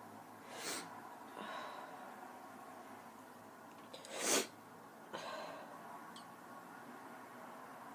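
A woman sneezing: one loud sneeze about four seconds in, with shorter breathy bursts before and after it.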